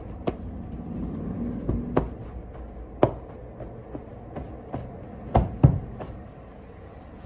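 A handful of sharp knocks and clatters, the loudest two close together about five and a half seconds in, over a steady low hum.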